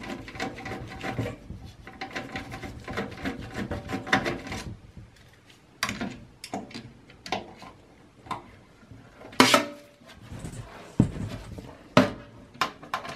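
Hand screwdriver backing motherboard screws out of a steel PC case: rapid scraping and clicking of the bit in the screw heads for the first few seconds, then scattered metal clicks and clinks, with one louder knock about nine seconds in.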